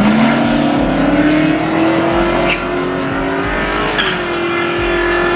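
Holden Commodore SS V8 engine revving up sharply and held at high revs, with tyres squealing, as in a burnout. The pitch climbs fast at the start, then holds high with a brief dip about four seconds in.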